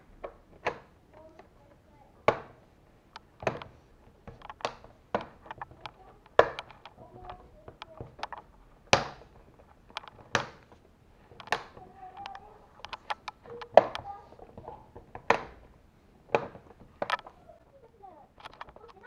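Plastic clips of an HP ProBook 450 G2 laptop's bottom cover snapping into place as the cover is pressed down around its edges: a dozen or so sharp clicks, roughly one every second or two.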